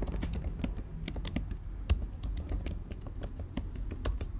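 Typing on a computer keyboard: a run of irregular key clicks, about four or five a second, with one sharper keystroke about two seconds in.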